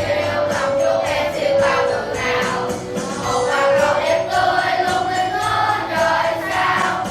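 A group of students singing a song together in unison over instrumental backing music.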